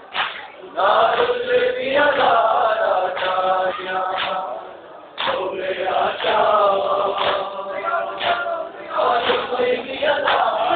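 A chorus of men chanting a Shia noha, a Muharram mourning lament, in unison, with a melody that rises and falls. Sharp collective slaps of chest-beating (matam) cut in every few seconds.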